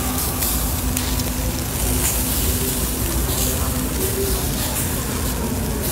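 Thin slices of raw beef sizzling on a round mesh grill over live charcoal, a steady frying hiss.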